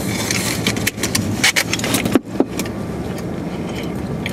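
Eating and drinking noises close to the microphone: a burger being chewed, a wrapper crinkling and clicking, and a sip through a straw from a fountain-drink cup, bunched in the first two and a half seconds. A steady low hum fills the car throughout.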